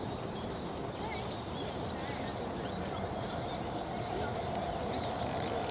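Birds chirping in a garden, short rising-and-falling chirps about twice a second, over a steady low background hubbub.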